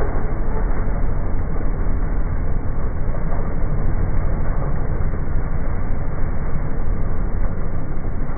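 Ride-on lawn mower engine running steadily, slowed down by slow-motion playback so it is heard as a deep, even rumble.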